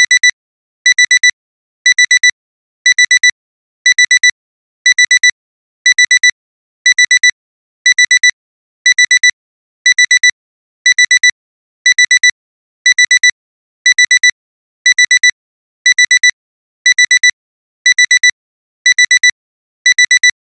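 Digital alarm clock beeping: a high beep sounding four times in quick succession, the group repeating once a second. It is the continuous alarm that signals the timer has run out.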